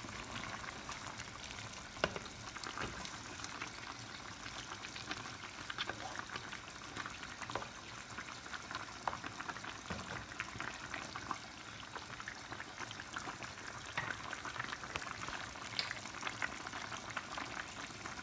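Pan of meat and cabbage stew simmering, with a steady fine crackle of bubbling and sizzling, and a spatula stirring through it with occasional sharper clicks.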